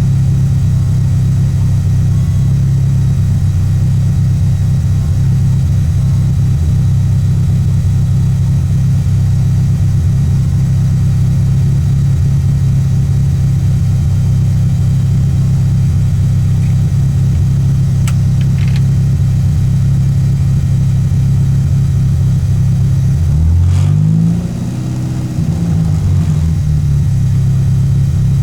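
Peugeot 205 engine running hard at steady revs. About 23 seconds in, the engine note sweeps up and then falls, with a brief drop in loudness, as the throttle is lifted and the revs change, before the steady drone resumes.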